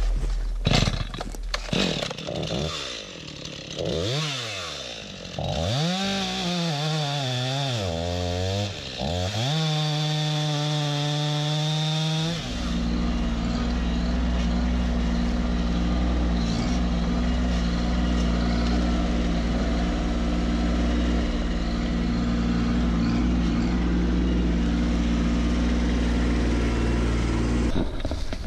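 STIHL MS251 two-stroke chainsaw bucking through a felled log, its engine pitch rising and falling repeatedly as it bogs and revs in the cut, for about twelve seconds. Then a steady low engine drone carries on without change until near the end.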